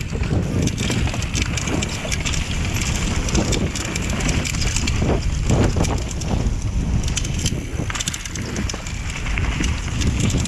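Mountain bike riding fast downhill: wind buffeting the camera microphone, with the tyres rolling over a wooden boardwalk and then a dirt trail, and steady small clicks and rattles from the bike.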